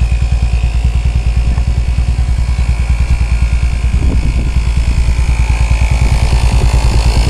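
Portable electric tyre inflator running while it pumps up a motorcycle's rear tyre: the rapid, even chugging of its small piston compressor with a thin whine above it.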